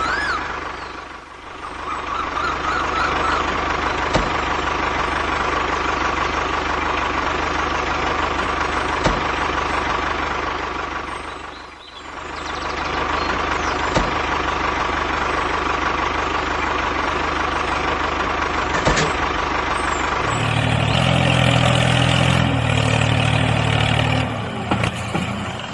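The motor of a small home-made model tractor running steadily with a thin constant whine, dipping briefly twice. Near the end a different, lower-pitched sound takes over.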